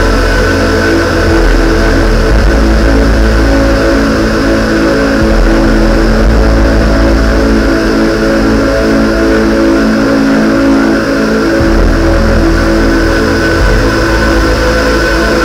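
Loud live electronic music played on synthesizers: a dense, sustained drone of held tones over a deep bass that shifts every few seconds.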